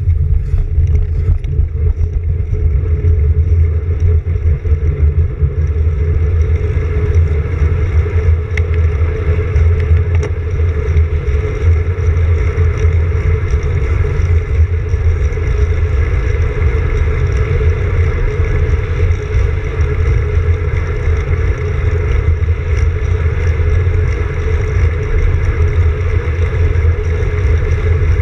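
Wind buffeting the microphone of a handlebar-mounted camera on a moving road bicycle: a steady, loud, low rumble, mixed with the tyres rolling on asphalt.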